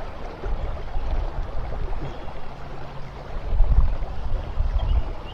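River water rushing through nearby rapids, with uneven low rumbling that is loudest about three and a half seconds in.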